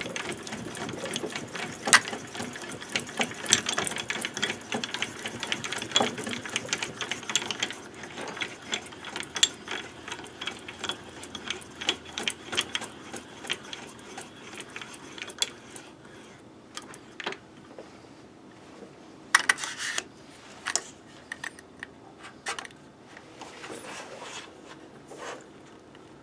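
Harbor Freight mini mill's table being cranked along its travel by hand: a run of rapid mechanical clicking and rattling from the handwheel and leadscrew, thinning to scattered clicks and knocks after about sixteen seconds.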